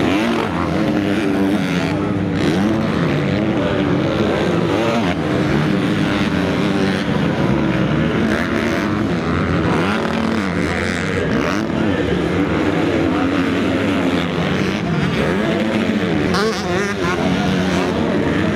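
Several motocross bike engines revving hard, their pitch rising and falling and overlapping as the bikes race by.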